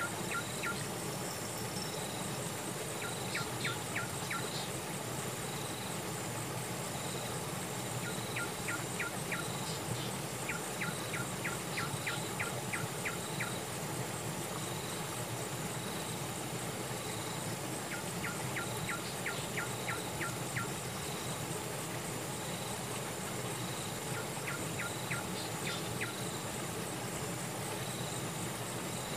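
Insects calling: a steady high-pitched trill with a softer note pulsing about once a second. Every few seconds comes a quick run of six to eight short, sharp calls from another small animal.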